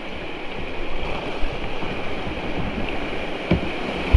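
Creek water rushing over a small waterfall as a kayak runs the drop: a steady wash of water, with a low thump about three and a half seconds in and a louder one near the end.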